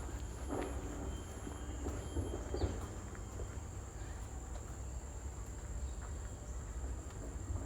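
Insects calling in tropical greenery: a steady high-pitched drone, and a still higher insect chirping in even pulses that stops about two seconds in. A low rumble runs underneath.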